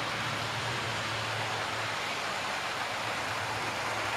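Model Warship-class diesel locomotive and its coaches running along the layout track: a steady rushing of wheels on rail, with a low motor hum that fades about halfway through.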